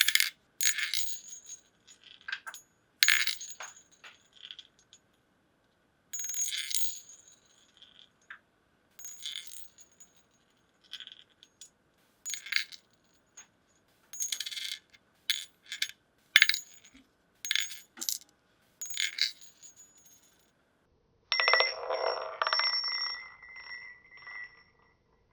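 Metal wedding rings clinking on a hard surface: a series of short, bright chinks with a brief high ring after each, in separate groups with silence between. About 21 s in comes a longer run of rapid chattering rings lasting about four seconds, like a ring spinning down on its edge.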